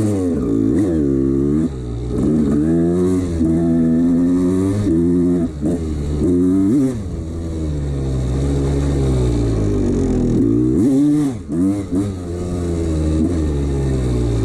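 1989 Honda CR250's two-stroke single-cylinder engine running and being revved, its pitch rising and falling every second or two, steadier for a few seconds in the middle, with a brief drop about eleven seconds in. The owner says the engine has piston slap.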